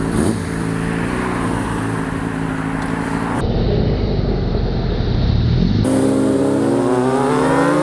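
Sport motorcycle engine, a Honda CBR600, running steadily under way. About six seconds in, its note climbs steadily as the bike accelerates.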